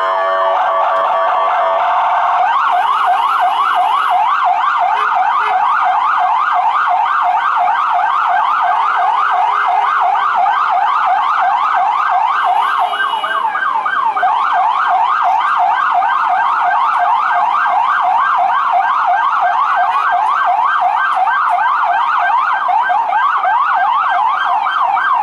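FDNY ambulance's electronic siren in a fast yelp, its pitch sweeping up and down about four times a second. It is preceded in the first two seconds by a steady, blaring tone.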